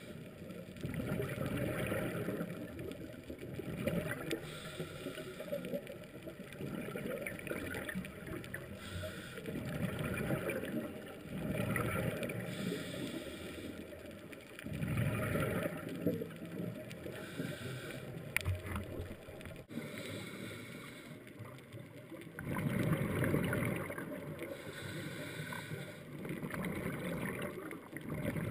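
Underwater sound of scuba breathing: bursts of exhaled regulator bubbles every three to four seconds, with a muffled rumble between them.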